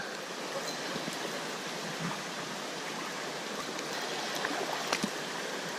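Steady rush of flowing creek water, with a faint click near the end.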